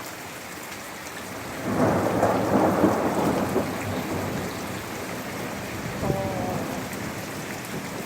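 Heavy rain falling steadily, with a clap of thunder breaking in about two seconds in as a loud rumble that is strongest a second later and then fades slowly.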